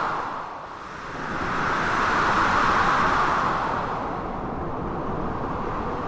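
Blizzard wind with surf noise, a continuous rush that dips just under a second in, swells to a peak over the next couple of seconds and then eases back.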